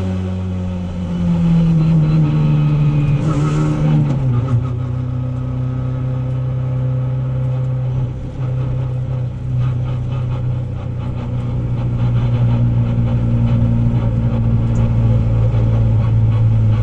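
Opel Adam rally car's engine heard from inside the cabin. Its note drops as it shifts up into fourth gear about four seconds in, then it runs at a steady speed, growing a little louder near the end.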